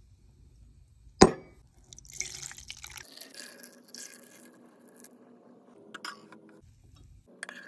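A chocolate hot cocoa bomb dropped into a ceramic mug with one sharp knock about a second in, then milk poured over it, a splashing pour that runs for several seconds before stopping.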